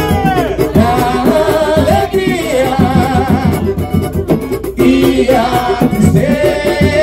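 Live samba: a voice singing over cavaquinho strumming and hand-drum and small percussion keeping a steady beat.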